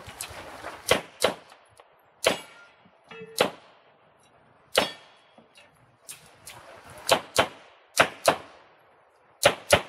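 Pistol shots in a practical shooting stage, mostly in quick pairs about a third of a second apart, with single shots and pauses in between.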